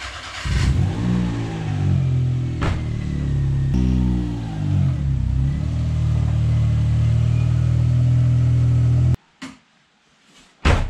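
Turbocharged Daihatsu Mira L500 kei car's engine running as the car is driven, revving up and back down twice. It then holds a steady note and cuts off suddenly about nine seconds in. A single sharp thump comes near the end.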